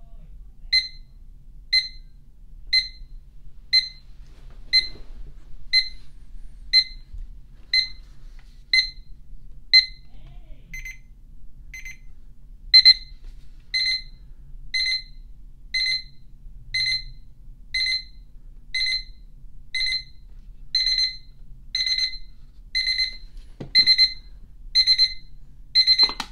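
Peakeep digital alarm clock's alarm beeping, very loud, about one beep a second. From about halfway through, the beeps become longer, louder pulses. Near the end there is a click, and the alarm stops as the snooze/light bar on top is pressed.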